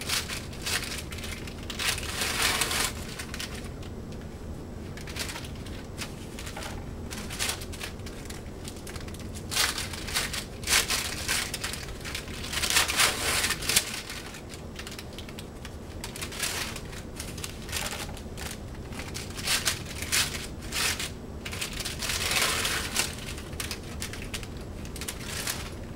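Paper peel-pack wrappers of sterile gauze dressings being peeled open and crinkled, in several bursts of rustling a few seconds apart, with small clicks and handling noises between.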